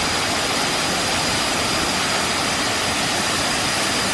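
Waterfall rushing steadily at close range: a loud, unbroken rush of falling water.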